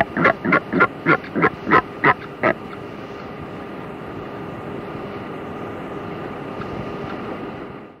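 A bird giving a rapid series of short, loud calls, about three a second, that stops about two and a half seconds in; a steady low background carries on after it.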